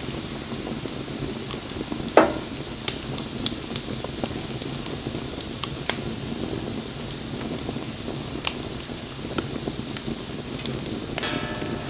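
Wood fire burning: a steady hiss with scattered sharp crackles and pops, the loudest pop about two seconds in. Near the end comes a brief squeaky whine of about half a second.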